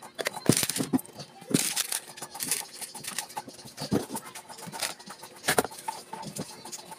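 Hands rummaging in a plastic storage container and handling small plastic packets, making a run of irregular rustles, taps and clicks.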